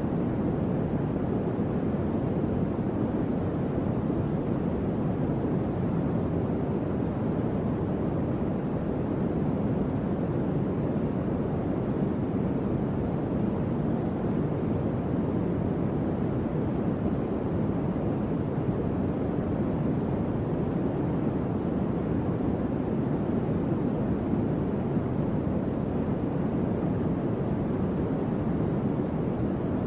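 Electric fan running steadily, a smooth low whooshing of moving air with no clicks or changes in speed.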